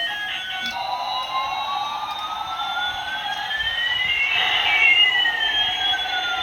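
Electronic sweep effect: two tones glide slowly in opposite directions, one rising and one falling, crossing about two thirds of the way in, over a steady low hum.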